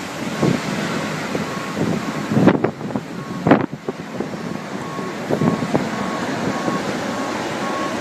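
Strong wind buffeting the microphone in gusts, with a faint electronic beep repeating steadily in the background.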